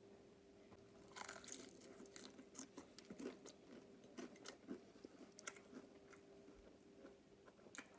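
Person biting into and chewing fried chicken, the crispy breading crunching in a quick run of sharp crackles from about a second in until past the middle, with one more crunch near the end. A faint steady hum runs underneath.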